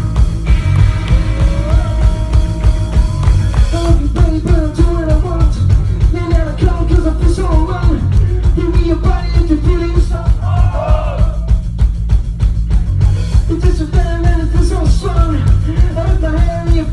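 Loud rock-style music with a steady driving beat; a sung or shouted melodic line comes in about four seconds in.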